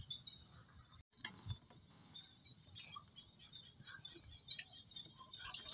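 Chorus of night insects chirring steadily in a high, pulsing drone, cutting out for a moment about a second in.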